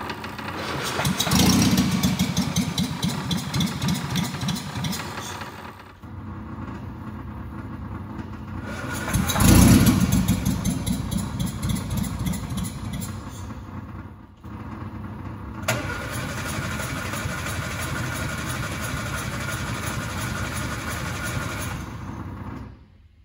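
A Morris Minor pickup's engine cranking over on its starter in repeated tries of several seconds each, without catching. The fuel pump runs noisily throughout; the owner suspects it has lost its prime.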